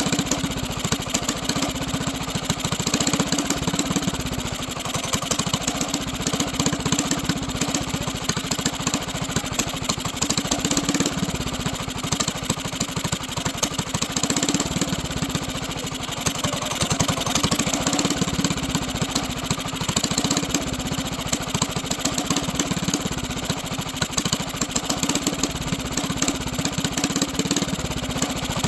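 Mini bike's small single-cylinder engine running steadily at idle, with a fast, even beat and slight slow swells in level.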